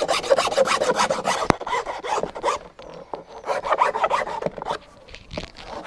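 Wood rasp filing an MDF board edge in fast back-and-forth scraping strokes, shaping an angled bevel for a joint. It stops for short pauses between spells of strokes.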